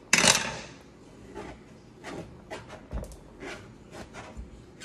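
A brief loud rush of noise just after the start, then scattered light knocks and taps as a kitchen knife and an eggplant are handled on a plate.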